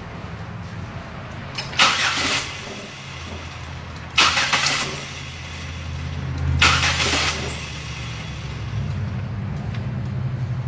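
Car engine cranked on its starter in three short bursts without firing: a crank-no-start with spark and injector pulse present but no fuel pressure.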